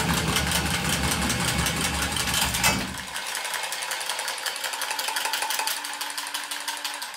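Power copper tubing cutter running on a copper pipe with a fast, even chatter and a heavy low rumble; about three seconds in the rumble drops away, leaving a lighter rapid ticking over a faint steady hum.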